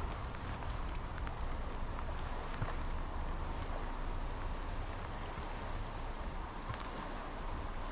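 Steady rush of a big river running high, with wind rumbling on the microphone.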